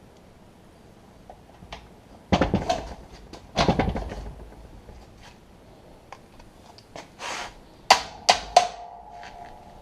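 Metal parts of a tractor seat clattering as they are handled, twice, then three sharp metal strikes in quick succession near the end, the last one leaving a brief ringing tone.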